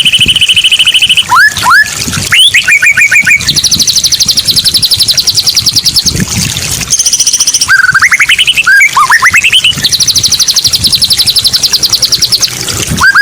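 High chirping in long, very fast, evenly spaced trains of about ten notes a second, some trains holding one pitch and others sweeping upward, with only short breaks between them throughout.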